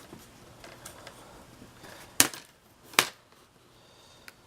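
Two sharp plastic clicks, under a second apart, with a few fainter ticks and light handling noise: the snap clips of a laptop's plastic keyboard trim letting go as it is pried up.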